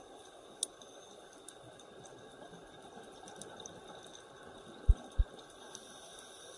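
Underwater ambience picked up by a camera under water: a quiet, steady hiss with scattered faint clicks. Two loud, dull, low knocks come close together a little after the middle.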